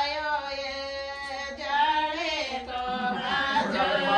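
Singing: a slow melody with long held notes that bend in pitch, without a clear beat.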